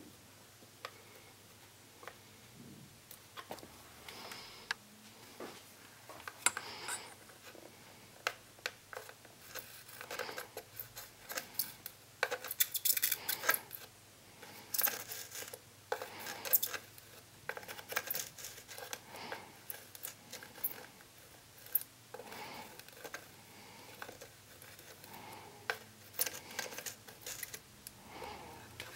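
Light, irregular metallic clicks and scrapes from tweezers and a soldering iron tip working the pins of a surface-mount IC on a circuit board. The clicks come thickest in the middle.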